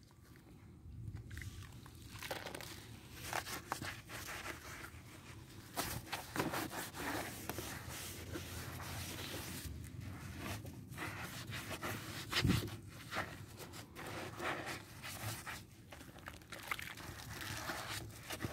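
A soapy sponge being dipped in a bucket of water and scrubbed and squeezed against a scooter's underside: irregular wet squishing and sloshing, with foam and water dripping, and one sharp knock about twelve seconds in.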